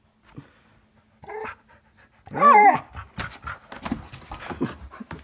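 A dog gives a short, wavering whine-like vocalization about two seconds in, after a fainter one just before it. It is followed by a quick run of knocks and scuffing.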